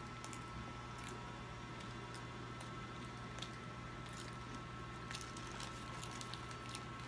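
Faint wet chewing and mouth sounds of a child eating pizza, with scattered small clicks, over a steady low hum.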